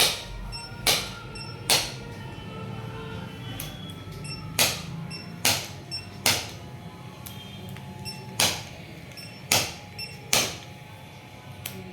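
Background music: steady tones under sharp percussive hits that come in groups of three, the pattern repeating about every four seconds, with faint regular high ticks.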